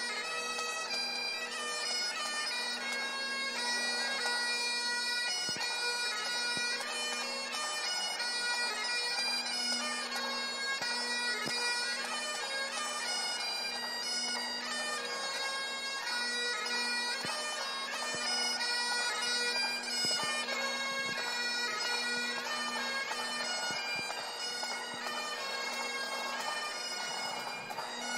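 Several Great Highland bagpipes played together: a steady drone under a melody of held notes that step from pitch to pitch.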